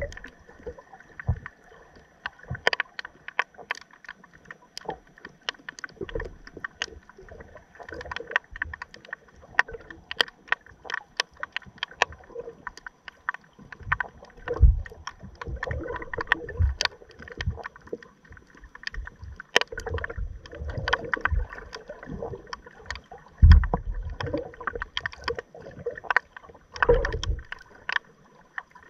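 Underwater ambience picked up by a submerged camera: water moving, with frequent sharp clicks and crackles and irregular heavy low thumps, the loudest about halfway through and again about four-fifths in.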